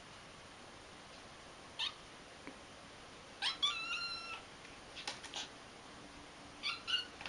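Cat meowing in short calls: a brief one about two seconds in, a longer drawn-out meow about halfway, and two quick ones near the end, with a few light clicks in between.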